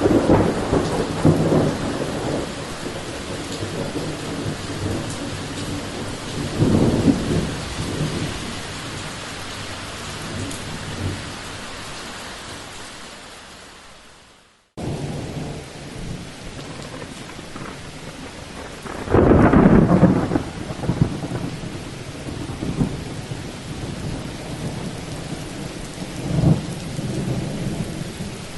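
Thunderstorm: steady rain hiss with rolling thunder rumbles, the strongest about twenty seconds in and others near the start, about seven seconds in and near the end. About halfway through, the sound fades away almost to nothing and then cuts back in abruptly.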